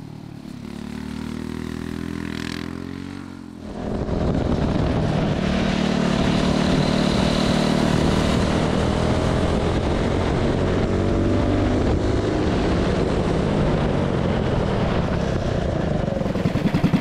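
Predator Ghost 212cc single-cylinder kart engine running at speed: a more distant engine note with shifting pitch for the first few seconds, then, about four seconds in, the loud onboard sound of the engine held near full throttle with wind rush over it.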